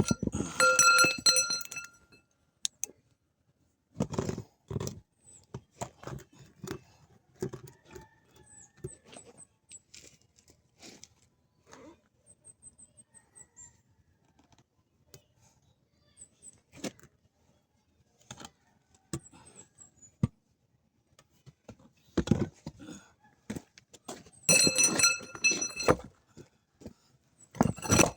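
Metal tools and parts clinking and knocking during hands-on work, with a few louder clanks that ring with a clear metallic tone near the start and twice near the end. No engine is running.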